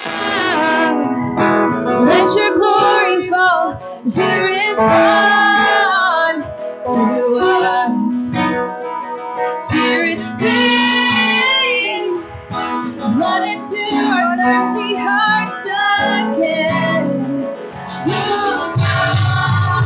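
Worship song played live: a woman singing lead over strummed guitar and a band.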